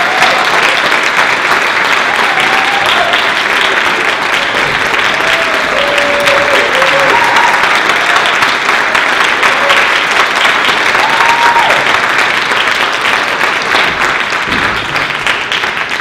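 Audience applauding, a dense, loud clapping with a few short calls and cheers over it, thinning a little near the end.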